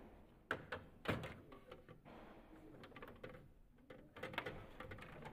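Plastic clicks and knocks from hands working the parts in a Canon iR 2202 copier's paper feed area, where the paper pickup and separation parts sit, with the loudest knock about a second in and another cluster of clicks near the end.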